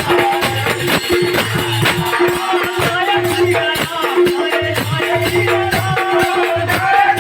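Devotional music with a fast, steady beat of shaken rattle-like percussion under a held tone and melody.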